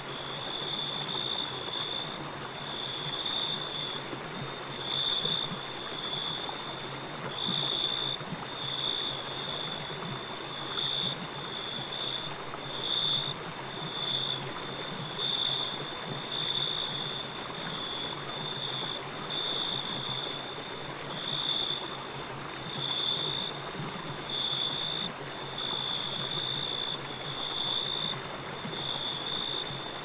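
An insect chirring in repeated bursts about a second long at a steady high pitch, over the steady rushing of a shallow rocky stream.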